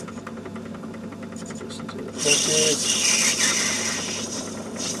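Myford ML7 metal lathe running steadily while a knife tool takes a light turning cut on a brass workpiece; the scraping hiss of the cut comes in about two seconds in and fades out near the end.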